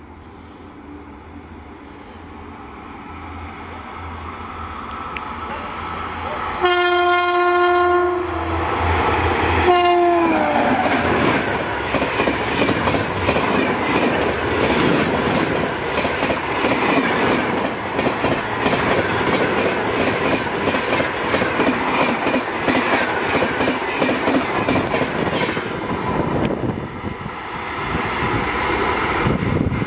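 WAP-7 electric locomotive at the head of an express train approaching at speed, its horn sounding one long blast and then a short one that drops in pitch as the locomotive passes. The coaches then rush by at about 130 km/h with a rapid clickety-clack of wheels over rail joints.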